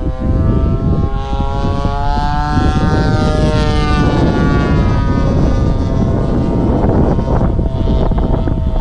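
Engine and propeller of a radio-controlled model airplane flying overhead. The pitch rises slightly and then drops about three to four seconds in as the plane passes, over a steady low rumble.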